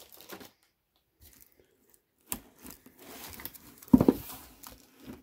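Plastic bags crinkling and rustling as CGC comic slabs are handled and drawn out of a cardboard box, with a single hard knock about four seconds in.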